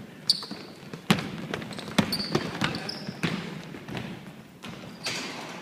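Basketball bouncing on a court floor during play, with a run of sharp bounces from about one second in to just past three seconds. Short high squeaks, typical of sneakers on a court, come in between.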